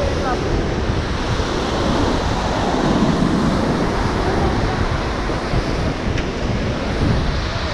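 Fast mountain river, the Parvati, rushing over boulders below: a steady, loud wash of white water, with wind buffeting the microphone.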